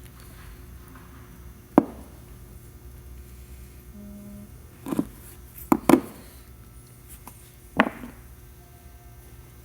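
A handful of sharp clicks and taps as small tools and phone parts are handled during smartphone disassembly: single taps about two seconds in and near the end, with a quick cluster of three in the middle. A steady low hum runs underneath.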